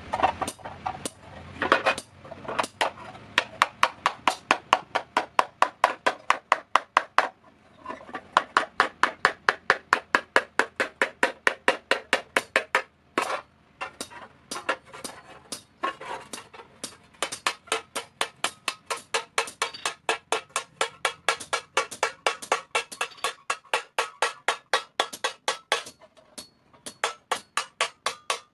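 Hand hammer with a narrow pointed head striking a sheet-iron plate on a block, dishing it into a thali: rapid, even metallic blows at about three to four a second, each with a short ring, broken by brief pauses about seven and thirteen seconds in.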